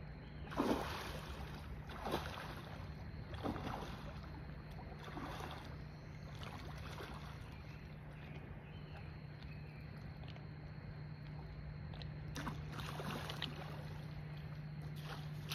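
Rod-and-reel fight with a large blue catfish: a run of short noisy bursts about every second and a half, dying away after about seven seconds and returning twice around twelve to thirteen seconds in, over a steady low hum.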